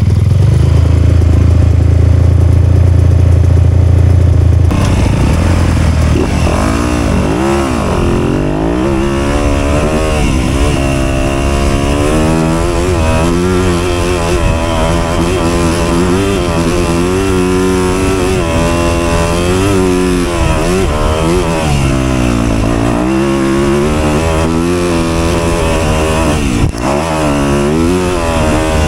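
Dirt bike engine running steadily at low revs, then from about five seconds in revving up and down over and over as the bike is ridden along the trail.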